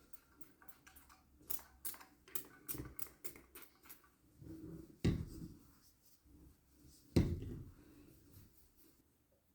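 A run of quick light clicks for a few seconds, then two louder dull thumps, one about five seconds in and one about seven seconds in.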